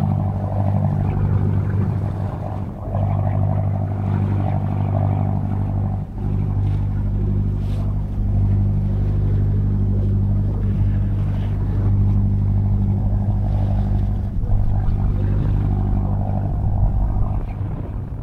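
A motor boat's engine running steadily as the boat cruises, a constant low drone that dips briefly about three and six seconds in.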